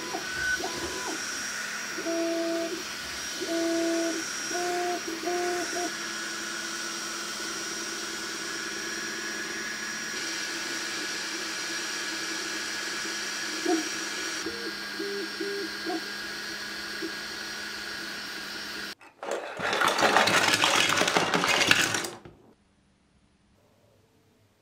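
Creality 3D printer printing: its stepper motors give short pitched tones that start, stop and change pitch with each move, over the steady hum of its cooling fans. Near the end a loud rushing noise lasts about three seconds, then it goes nearly quiet.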